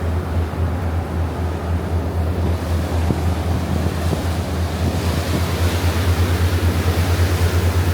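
Harbor cruise boat's engine running with a steady low drone, mixed with wind and rushing water that grow louder about halfway through.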